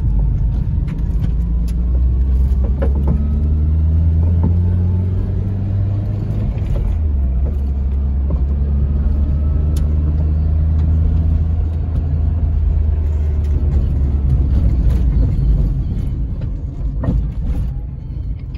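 Carbureted 1.5-litre four-cylinder engine of a 1985 Toyota Tercel 4WD wagon, heard from inside the cabin while driving at low speed. The revs climb for several seconds, drop at an upshift about seven seconds in, hold steady, then die away near the end as the car slows.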